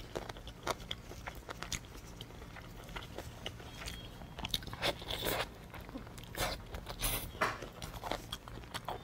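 Close-miked eating of glazed cola chicken wings: biting and chewing, with wet smacks and clicks as the meat is sucked off the bone. Several louder smacks come in the second half.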